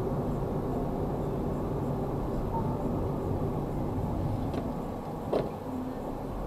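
Steady road and engine noise inside a moving car, as picked up by a dashcam, with one short sharp knock about five seconds in.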